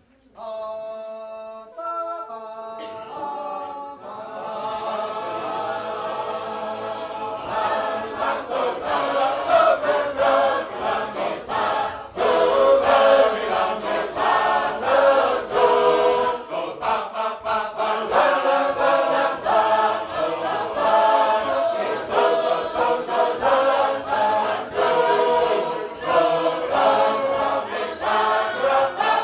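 Sacred Harp shape-note singing: a few lone held notes at the start, then a full class of unaccompanied voices joins in four-part harmony. The singing grows louder about seven seconds in.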